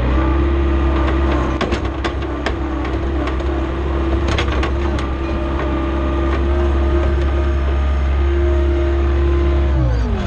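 John Deere skid steer's diesel engine running steadily at speed, with scattered clicks and knocks, its engine speed dropping quickly near the end.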